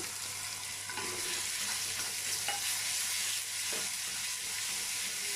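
Ginger-garlic paste sizzling in hot oil with tempering spices, with a steady high hiss and a few soft scrapes as it is stirred in the pan.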